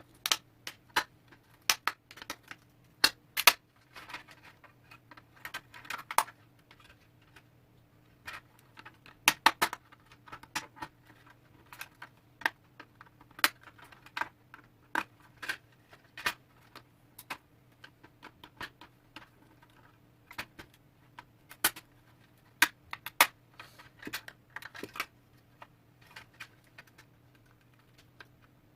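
Irregular clicks, taps and short scrapes of small plastic and metal parts being handled and pried apart as an LED lamp is disassembled, over a faint steady low hum.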